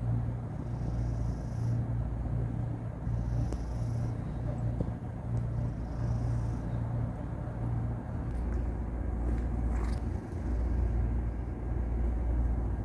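Persian cat purring close to the microphone: a steady low rumble that swells and eases with each breath in and out.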